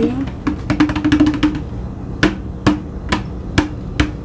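Hand drumming on a hard surface: a quick drum roll of fast taps, then single sharp taps about twice a second, each leaving a short ringing note.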